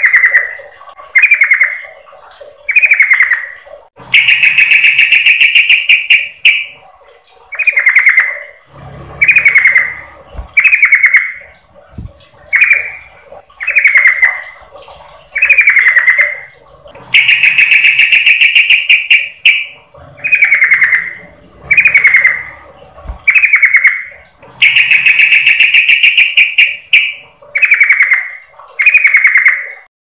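Yellow-vented bulbul (trucukan) calling loudly: runs of short downward-slurred chirps about one a second, broken every several seconds by a longer rattling call of two to three seconds. It is a lure recording, presented as a female calling to draw in a male.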